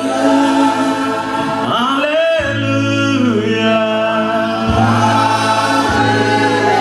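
Gospel worship music: a choir singing sustained, gliding lines over a held keyboard pad, with a single voice calling out "Hallelujah" about halfway through.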